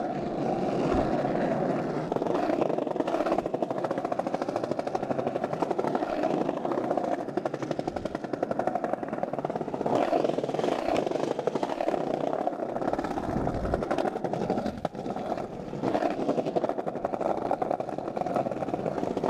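Skateboard wheels rolling over asphalt and brick paving: a steady rumble with a fast rattle running through it.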